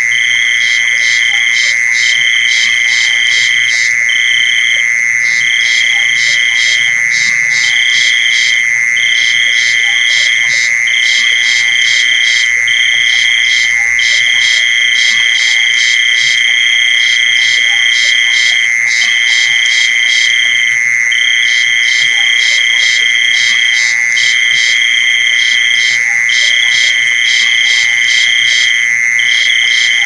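A dense mix of mole cricket, field cricket and giant water bug calls. An unbroken steady trill runs underneath, a higher trill drops out briefly every second or two, and rapid pulsed chirps repeat over the top.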